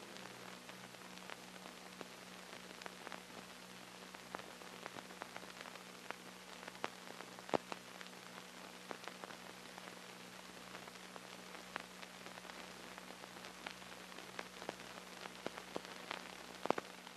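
Surface noise of an old film soundtrack: a steady hiss and low hum with scattered clicks and pops, the sharpest pops about seven and a half seconds in and near the end.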